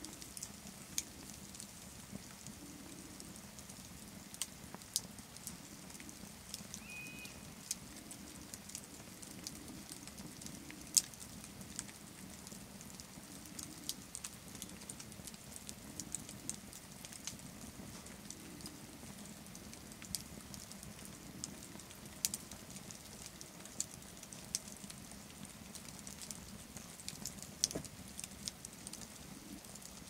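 Wood campfire crackling: irregular sharp snaps and pops from the burning sticks over a faint steady background, with one louder snap about eleven seconds in.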